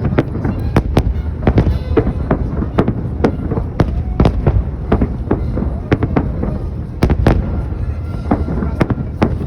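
A fireworks display: a rapid, irregular run of sharp bangs and crackles, several a second, over a constant low rumble from the volley.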